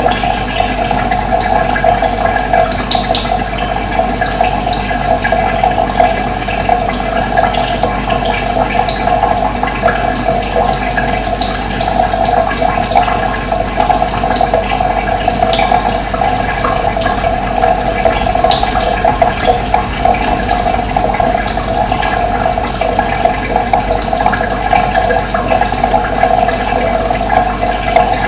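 Running water rushing steadily, with short high bird chirps scattered over it.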